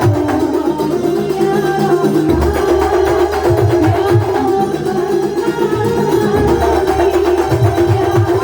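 Live kuntulan music: a traditional Banyuwangi ensemble playing continuously, with low drum strokes under a sustained, wavering melodic line.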